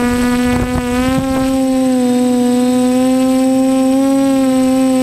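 TBS Discovery quadcopter's electric motors and propellers whining at a steady pitch, heard through its onboard camera. Wind buffets the microphone for the first second and a half, and the pitch rises a little about a second in before settling.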